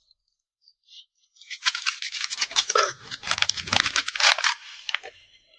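A dog chewing food, a quick run of crisp crunches and mouth clicks that starts about a second and a half in and stops near the end.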